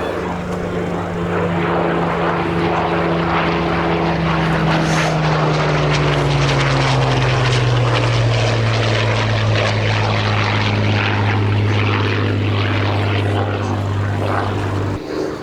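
Hawker Hurricane Mk.I's Rolls-Royce Merlin V12 engine and propeller flying past: the engine note grows louder, falls in pitch as the aircraft passes, then holds steady. The low engine note cuts off suddenly just before the end.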